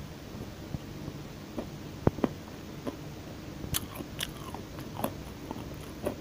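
Close-miked chewing of crunchy food, with a scattering of sharp crisp crunches, most of them between about two and five seconds in.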